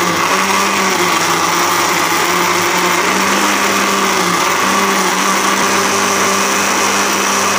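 Electric countertop blender running steadily at speed, churning peach pieces, sugar and milk into a milkshake: a constant motor hum over the whirl of the liquid.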